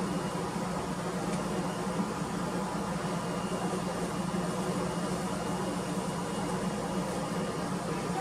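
Desktop PC running, its cooling fans and jumped power supply giving a steady whir with a low hum.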